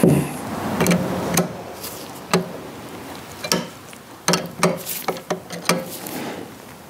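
Scattered clicks and light metal knocks from a wrench being fitted to and worked on the bolts of a power steering pump and vacuum pump assembly, about ten in all at uneven spacing, bunched closer together in the second half.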